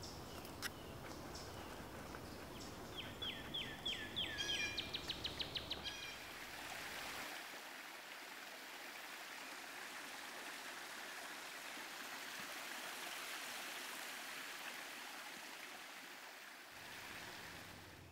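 A bird calls with a few falling notes that speed up into a quick run of notes, after a single click. Then a steady rush of running water from a small waterfall.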